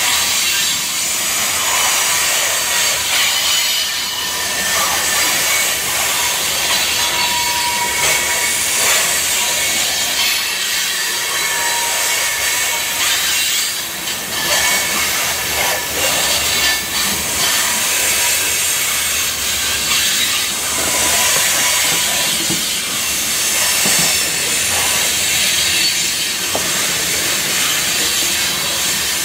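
Covered hopper cars of a freight train rolling past close by: a steady hiss of steel wheels on rail with scattered clicks.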